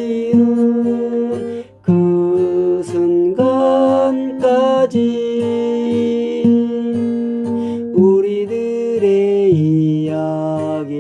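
A slow Korean folk song: acoustic guitar accompanying a voice that sings long held notes.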